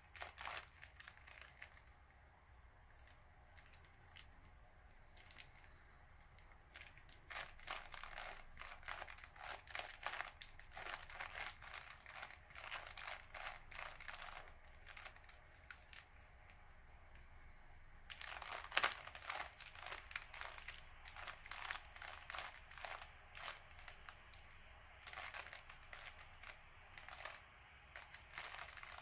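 A standard plastic Rubik's Cube being turned by hand: its layers click and clack in quick, irregular runs, broken by a few pauses of a couple of seconds.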